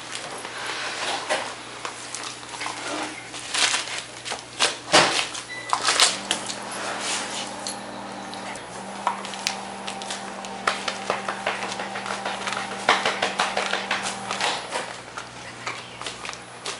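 A dog chewing and tearing the gift wrapping off a small present: an irregular run of paper crinkles and crackles with sharp clicks, over a steady low hum.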